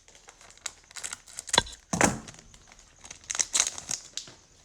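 Plastic trading card pack wrapper being torn open and crinkled by hand: irregular crackling rustles with two louder tearing bursts about one and a half and two seconds in.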